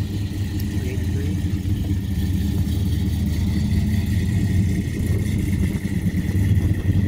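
A first-generation Dodge Charger's V8 running with a deep, steady rumble as the car drives slowly past, getting slightly louder toward the end.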